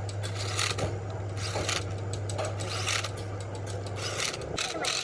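Irregular scraping or rubbing strokes of hand work on a part, over a steady low hum that cuts off about four seconds in.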